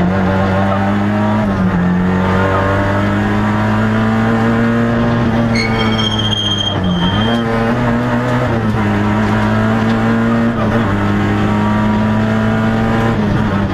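Peugeot 106 XSi rally car's 1.4-litre four-cylinder engine running hard at high revs, heard from inside the cabin. Its pitch climbs slowly and steps down several times as the driver changes gear.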